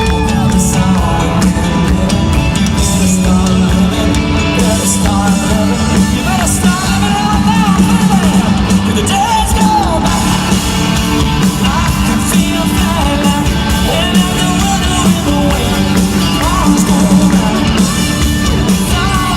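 Live country-rock band playing loudly in concert, with a sung melody over steady bass and guitars, and yells from the crowd.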